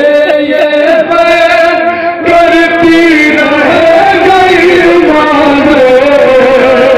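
Men singing a noha, a Shia lament chant, through microphones and loudspeakers, in long held, wavering notes with two voices overlapping.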